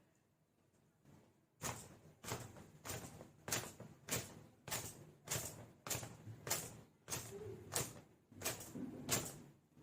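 Wet hair worked in a regular series of sharp swishing strokes, about a dozen at roughly two a second, starting a second and a half in.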